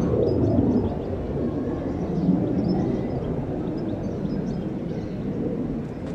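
Outdoor ambience: a steady low rumble with faint, scattered chirps of small birds.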